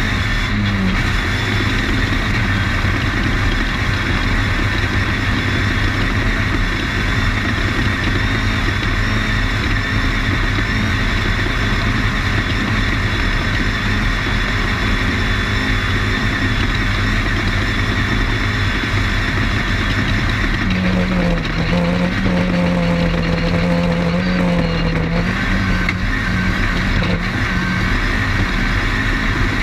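Off-road desert race car's engine running hard at speed, heard onboard under a steady loud rush of noise. About three-quarters through, a clearer held engine note stands out for a few seconds.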